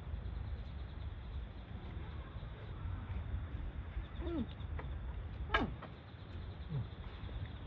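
A low steady rumble with three short animal calls, each falling sharply in pitch, about four, five and a half and seven seconds in.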